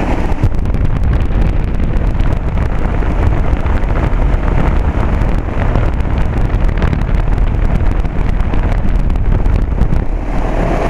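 1999 Rheem 4-ton heat pump's outdoor unit running in cooling mode, its condenser fan and Copeland scroll compressor making a loud, steady rushing noise with a deep rumble. Wind buffets the microphone.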